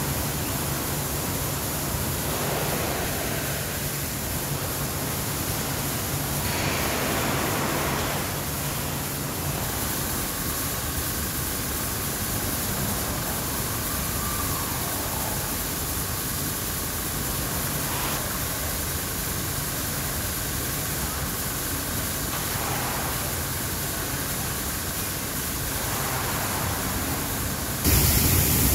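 Steady rushing noise of a running 10-ton recirculating paddy rice dryer, with a low hum underneath. Near the end it jumps suddenly louder as paddy grain pours down the dryer's metal chute.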